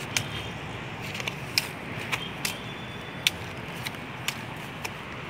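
Dry twigs and brush snapping and crackling in about ten sharp, irregular cracks as someone moves through scrub, over a steady background hiss.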